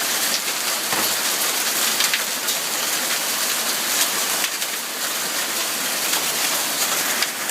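Hailstorm: hailstones and rain pelting down, a dense steady patter with many sharper single hits, one harder hit about a second in.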